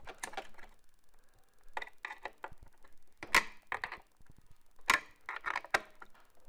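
Small metal nuts being snugged up with a hand wrench, the tool clicking and clinking against the nuts and metal mounting bracket. The clicks come irregularly in small clusters, the loudest about three and a half and five seconds in.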